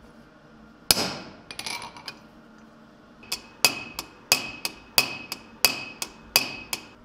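Hand hammer striking metal on the anvil: one hard blow with a ring about a second in, a few light clicks, then from about three seconds in a steady run of light taps, about three a second, each ringing briefly, as a hinge is hammered onto a small sheet-steel box.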